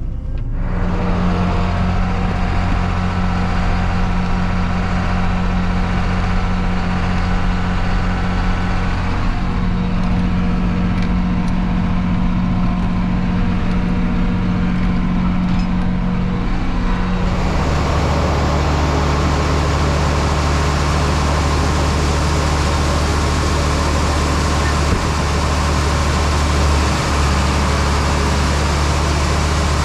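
Combine harvester's diesel engine running steadily, heard from the cab. About 17 seconds in the sound changes abruptly to a hissier, fuller running note.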